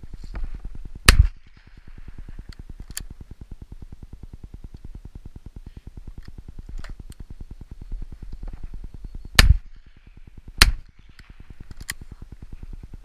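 Three close 20-bore shotgun shots from a Beretta Silver Pigeon over-and-under firing 26 g cartridges: one about a second in, then a left-and-right pair about a second and a half apart near the end. Fainter distant shots from other guns and a steady low rumble sit underneath.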